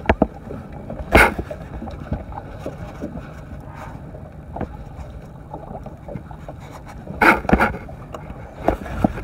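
Steady low rumble of wind and water around a small fishing boat, with sharp knocks about a second in and a few more near the end.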